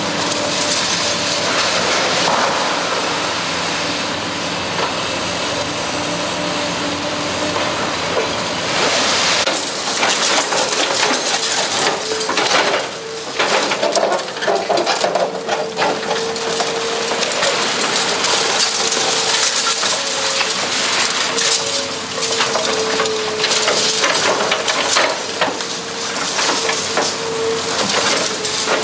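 Hydraulic demolition crusher jaws on an excavator biting through reinforced concrete: repeated cracking, crunching and clattering of broken concrete and rubble over the steady hum and whine of the machine. The cracking grows busier about a third of the way in.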